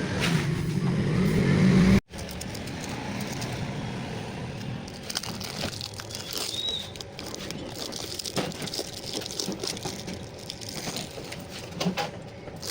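A steady motor hum for about two seconds, cut off abruptly. Then quieter scattered clicks, crackling and rustling, as of objects and tape being handled.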